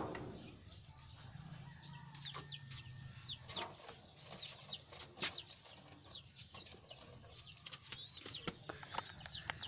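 Birds chirping, many short falling chirps one after another, with a few sharp clicks among them.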